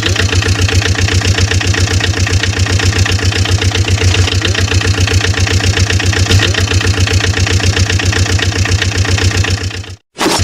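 Engine idling sound effect laid over the footage: a steady, rapidly and evenly pulsing low rumble. It drops out abruptly for a moment near the end and comes straight back.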